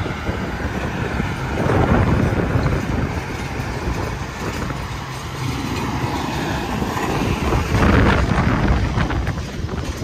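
Interstate highway traffic passing close by, with two vehicles swelling past about two seconds in and again near eight seconds, and wind buffeting the microphone.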